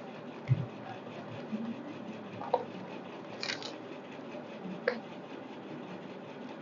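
Quiet room hiss with a soft low thump about half a second in and a few faint, scattered clicks and rubs.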